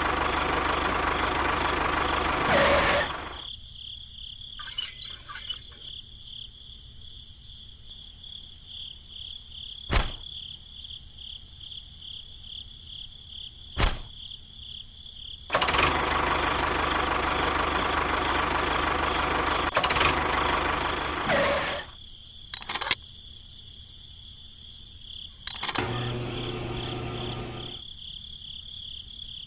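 A small motor runs in two spells: one of about three seconds at the start and one of about six seconds midway. A steady high whine continues throughout, and a few sharp clicks fall in the quieter gaps.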